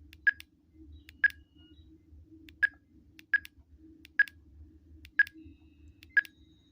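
Tidradio TD-H3 handheld radio's keypad beeping at each button press as its menu is scrolled: seven short, identical beeps, roughly a second apart.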